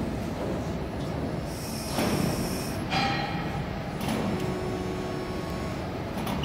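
Hybrid servo press brake running: a steady mechanical hum with short whines from its drives and a few knocks about a second apart.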